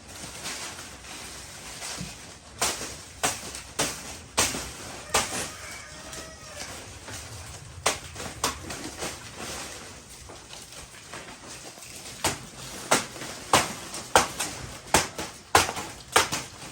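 Sharp chopping strikes of a blade into wood, coming in irregular groups, then faster at about two blows a second near the end.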